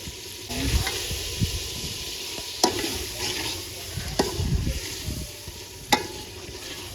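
Chicken sizzling in hot oil and masala in a cooking pot, stirred with a spoon that clinks sharply against the pot about three times.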